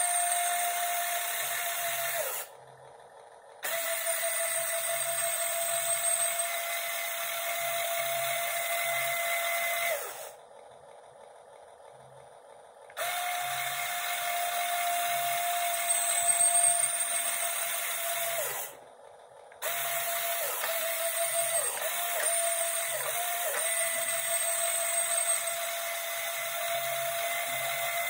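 Small geared electric motor drive of a home-built RC excavator arm whining steadily as it moves the boom and arm. It runs in four stretches with short pauses between them, and the whine sinks in pitch each time it stops. In the last stretch it dips briefly several times.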